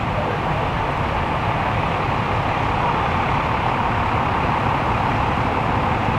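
Steady road traffic noise: a continuous hiss of passing vehicles' tyres and engines over a low rumble, with no single event standing out.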